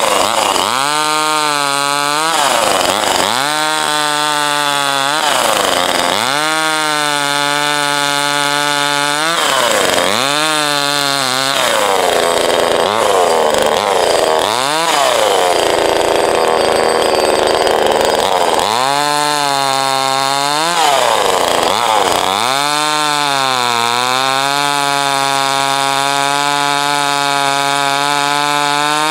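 Small 25cc two-stroke NEOTEC chainsaw cutting into a log, revving up and easing back again and again. In the middle it is held at high revs for several seconds.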